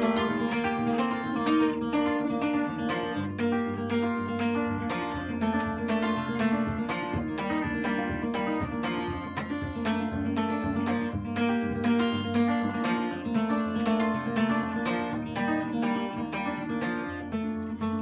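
Solo acoustic guitar playing an instrumental break between sung verses: a quick, steady run of plucked notes over ringing low bass notes, with no singing.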